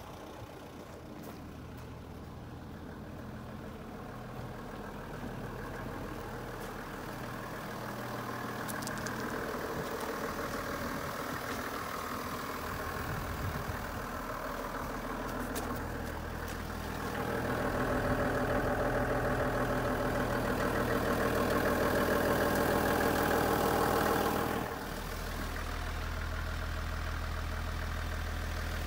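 Toyota Coaster's 1HD 4.2-litre straight-six diesel idling steadily. It grows louder past the middle, then drops suddenly near the end to a lower, duller hum.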